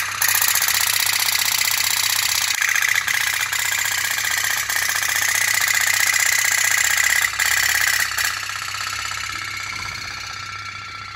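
Toy pop-pop steam boat running, its flame-heated boiler making a rapid, steady tapping that fades over the last few seconds.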